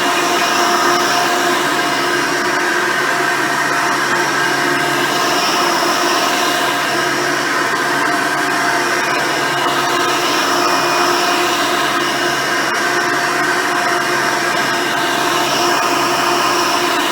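Hoover Decade Elite Soft & Light upright vacuum cleaner running steadily with its single-row brush roll while vacuuming, a motor whine over an airy hiss. A higher hiss swells and fades about every five seconds.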